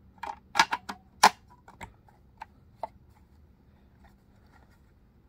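Sharp clicks and knocks of a GTX 570 graphics card's plastic and metal parts being handled and fitted back together. They are loudest in the first second and a half and thin out to faint ticks.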